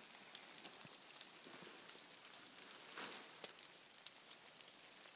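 Near silence: a faint steady hiss with scattered small ticks and clicks.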